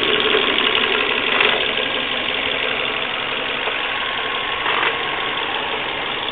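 Warmed-up Volvo V40 1.6 engine running steadily, with two brief louder moments about a second and a half and five seconds in. It is making odd noises, the 'strange noises' that appear once the engine is warm.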